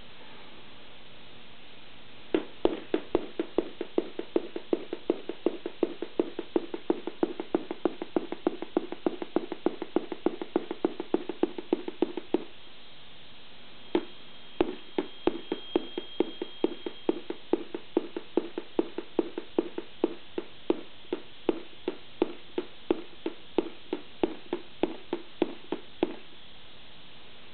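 Electronic organ kit circuit board giving out a rapid, regular rattle of electronic pops, about four to five a second over a low hum, like machine-gun fire, set off by a finger touching the bare board. It runs in two long bursts, the first starting about two seconds in, with a short break near the middle, and stops a little before the end.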